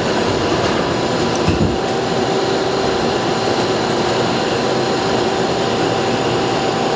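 Doosan Puma 2000SY CNC turning center running under power: a steady machine hum and whine. A further steady tone joins about two seconds in.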